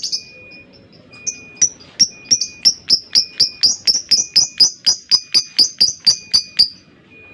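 Lovebird giving a run of sharp, high squeaky chirps that speed up to about four a second, then break off shortly before the end: the rapid 'ngekek' chatter. A faint, steady high whistle comes and goes behind it.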